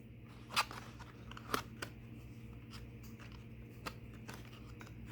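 Tarot cards being handled: a few scattered light clicks and snaps over a low steady hum.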